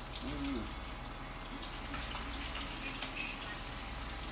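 Steady sizzling hiss of rattlesnake pieces frying in oil in a frying pan. A short faint voice sound comes about half a second in.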